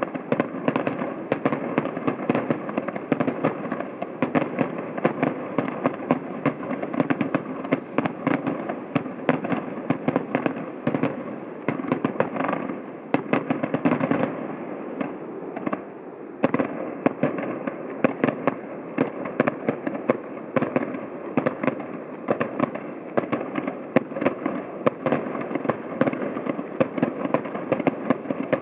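Fireworks display heard from about a kilometre away: a dense, continuous run of bangs and crackles, many per second, which eases briefly about halfway through and then picks up again.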